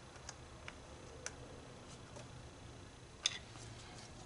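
Faint scattered clicks and light taps from handling plastic wiring-harness connectors, with one sharper click about three seconds in.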